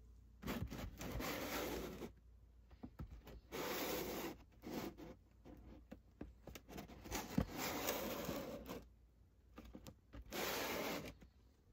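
Cardboard box being handled and turned over, its sides rubbing and scraping against a hand in four rustling bursts with light knocks between.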